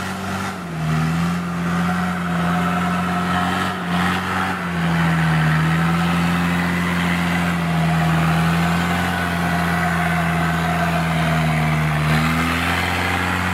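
Off-road 4x4's engine running under load, its pitch held fairly steady with small rises and dips.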